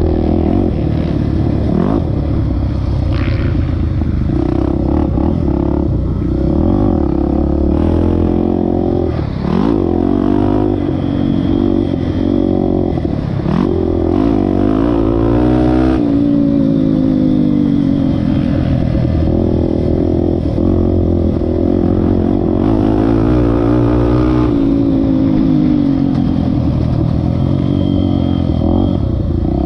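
Honda XR250 Tornado single-cylinder four-stroke motorcycle engine being ridden on a dirt track, its pitch repeatedly rising and falling as the throttle is opened and closed through the gears.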